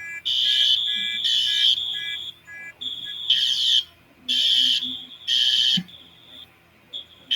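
Fire alarm voice-evacuation speakers sounding the alarm tone between spoken messages: loud high-pitched pulses in groups of three, about a second apart, with a longer pause between groups, the temporal-three evacuation pattern.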